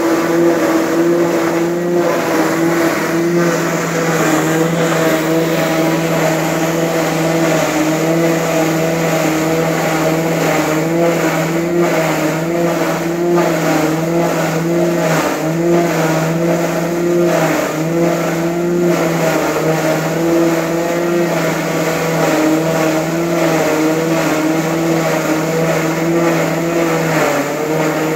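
Ginger garlic paste grinding machine running steadily: a loud, even motor hum holding one pitch over a continuous grinding noise as garlic is fed through.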